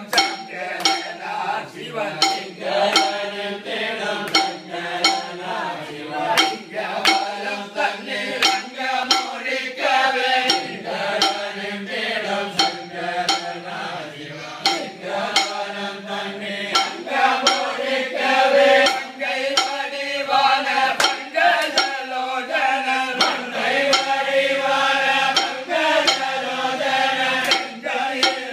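Group of men singing an Ayyappa devotional bhajan together. Regular metallic clinks keep time about twice a second.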